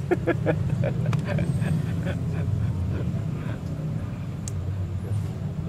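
Steady low rumble of road traffic, with faint voices in the background.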